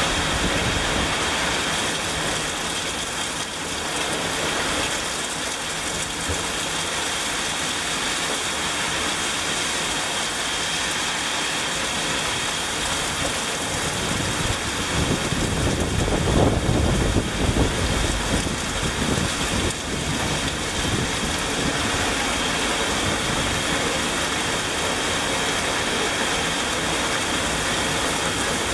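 Torrential rain pouring down steadily on lawns, pavement and a wet street. A low rumble builds and fades for a few seconds about halfway through.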